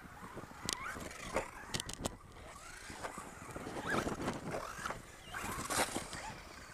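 Radio-controlled cars driving on a dirt track: motor and gear whine rising and falling with the throttle over a rough scrabble of tyres, with scattered sharp knocks from bumps.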